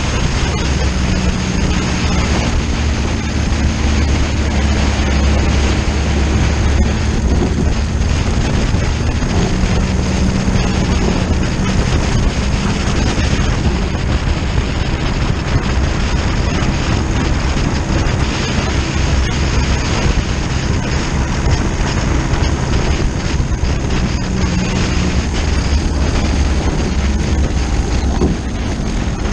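Turbo-diesel motorcycle engine, a VW Lupo 3L's 1.2-litre three-cylinder, running steadily under way, buried in a heavy rush of wind over the microphone.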